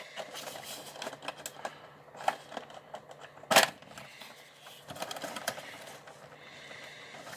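A Funko Pop's cardboard window box and plastic insert being handled and opened: scattered small clicks, taps and crinkles, with one louder knock about three and a half seconds in.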